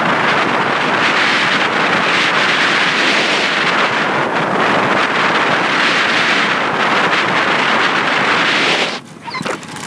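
Loud wind rush over the microphone of a camera on a road bicycle descending at speed, swelling and easing a little. About nine seconds in it drops off suddenly, followed by a few light clicks.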